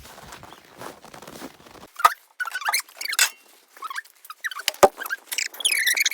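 Cold, dry snow crunching and squeaking: faint crackling at first, then loud, sharp, irregular crunches and squeaks from about two seconds in.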